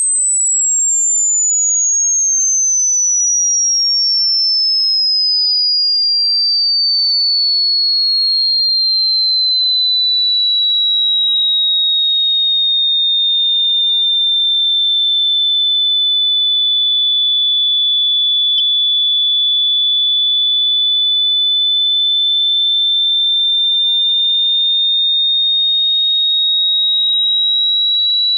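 A single pure electronic sine tone, loud and piercingly high. It glides slowly down in pitch over about fifteen seconds, levels off, then begins to creep back up near the end. There is a faint click about two-thirds of the way through.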